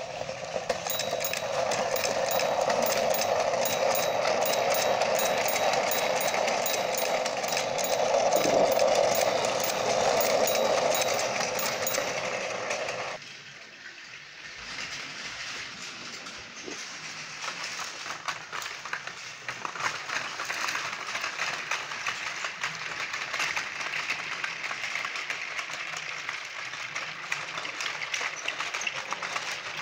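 Motorised toy trains running on plastic track: a loud, steady whirring rattle of the small motor and gears, which stops abruptly about thirteen seconds in and gives way to a quieter, fast-ticking rattle of another toy train for the rest.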